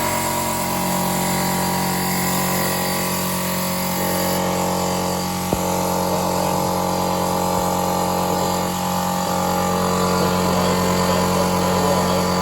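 Electric air compressor running steadily, its motor driving the pump and building air pressure in the tank, with a single click about five and a half seconds in.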